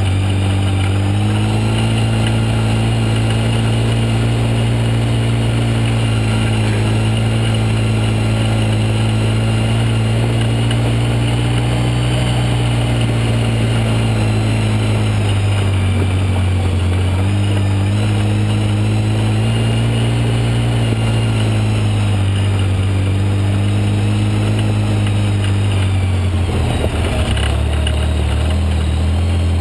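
Engine running steadily, its pitch drifting gently up and down with throttle, with a short jolt of noise near the end.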